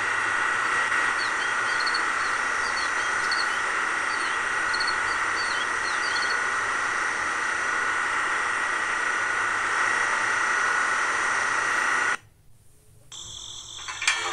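Small electric pump motor in a miniature petrol-pump model, running with a steady whine while it pumps liquid through the hose into a can. It cuts off abruptly about twelve seconds in.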